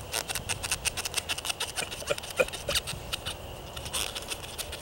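Rubber strut bump stop being cut through by hand with a small blade, shortened to suit lowering springs: a quick, even run of short scraping strokes, several a second.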